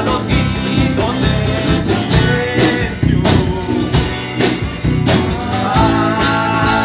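Folk-rock band playing: acoustic guitar and tiple strummed over bass and a drum kit.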